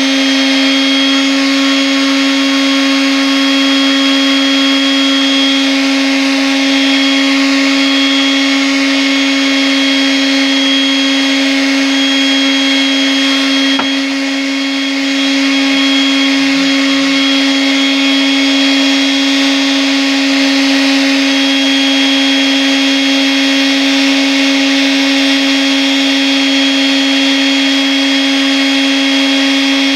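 Electric power sander running steadily with a constant motor hum, dipping slightly in level for a moment about halfway through.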